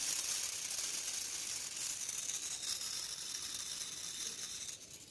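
Pull-back spring motor of a plastic toy quad bike running with its wheels spinning freely in the air: a steady gear whirr that slowly fades as the spring unwinds, then stops near the end.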